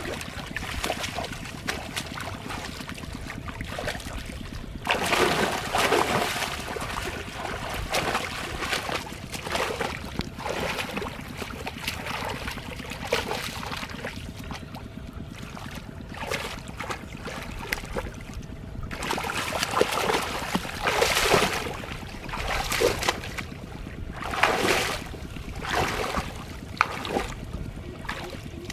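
Shallow muddy water splashing and sloshing as hands grope through it and bare feet wade in a flooded field channel, louder in several spells, over a steady low rumble of wind on the microphone.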